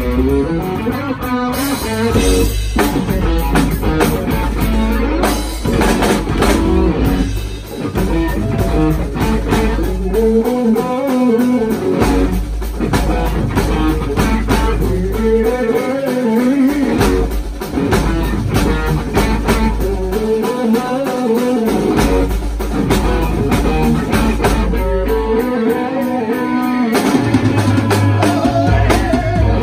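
Live rock band playing: electric guitars over bass guitar and a Pearl drum kit, with a guitar riff that comes back every few seconds.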